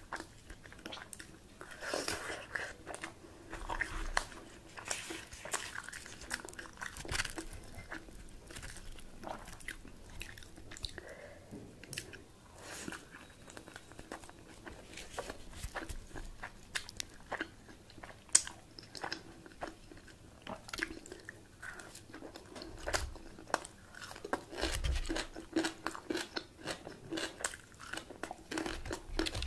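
A person eating close to the microphone: chewing and biting mouthfuls of mutton curry, rice and puri, with irregular wet smacks, crunches and mouth clicks and one sharper click about two-thirds of the way in.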